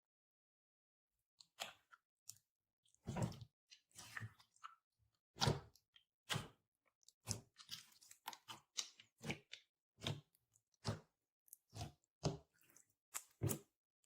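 Galaxy slime being squeezed and pressed by hand: a run of short wet squishes and pops, about one or two a second, starting about a second and a half in.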